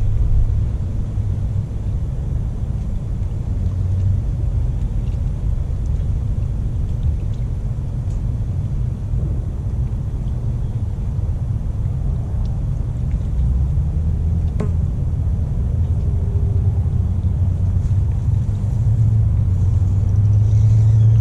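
Wind buffeting the microphone: a steady low rumble that grows a little louder near the end.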